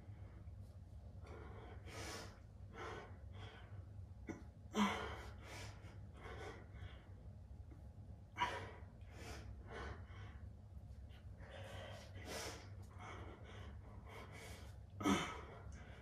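A man breathing hard in short, forceful breaths as he strains through a set of bicep curls, with three louder exhales, the first and last with a grunt, about five, eight and fifteen seconds in. A steady low hum runs underneath.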